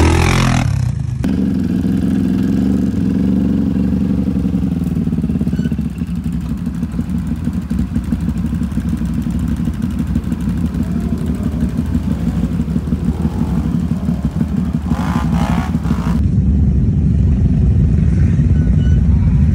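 ATV engines running and revving as quads work through mud, with the sound changing at two cuts and getting louder near the end.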